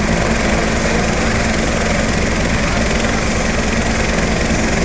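Air ambulance helicopter running on the helipad: a steady engine and rotor noise with a fast low beat from the rotor blades.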